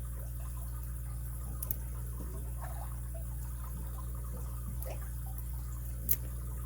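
A few light clicks and scrapes of a lock pick working the pin stack of a brass pin-tumbler padlock, over a steady low hum; the sharpest click comes near the end.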